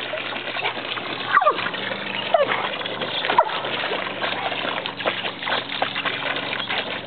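Water from a garden hose splashing into a plastic kiddie pool as a dog snaps and bites at the stream, with three sharp splashy snaps about a second apart in the first half and a few short, high dog whines.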